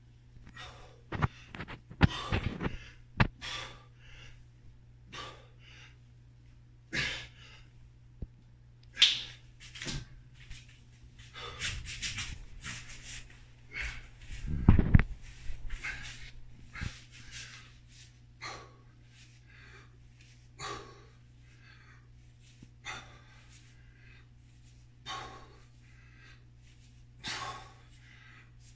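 A man's hard, rapid breathing and forceful exhales during a kettlebell chest workout, sped up to double speed. A few dull thumps come through, the loudest about halfway through, over a steady low hum.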